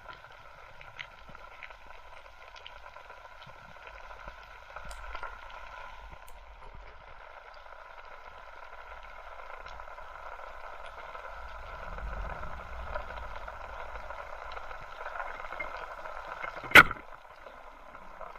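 Underwater reef ambience, a steady hiss with scattered faint ticks; near the end, one sharp, loud crack as a spear is shot and strikes a fish.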